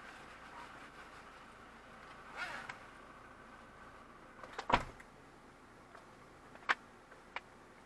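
Steady vehicle cabin hum with a brief whoosh about two and a half seconds in, then a single loud thump a little past the middle and two sharp clicks near the end.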